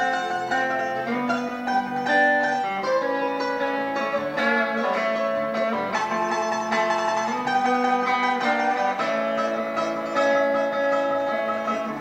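Electric and acoustic guitars playing a rock and roll tune together, with no singing.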